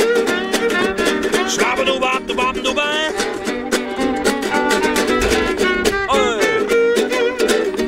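Small acoustic guitar strummed in a steady rhythm, with a violin playing a sliding melody over it, including a swooping downward slide about six seconds in.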